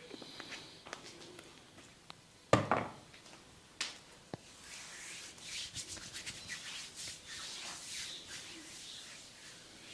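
A barber's hands rubbing and scratching over hair and scalp in a head massage, a dry rustling that grows denser in the second half. One loud smack comes about two and a half seconds in, and a smaller click about a second later.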